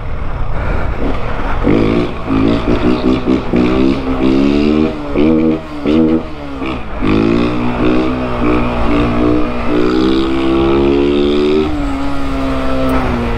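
Honda CG 160 motorcycle's single-cylinder engine under way, revving up and down in a run of short rising pulls, then holding one longer, steadier climb that drops off about twelve seconds in.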